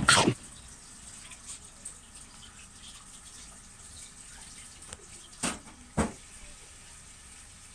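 Shiba Inu and cat play-fighting on a mat: a loud scuffling burst right at the start, then two short scuffles about five and a half and six seconds in, over a faint steady hiss.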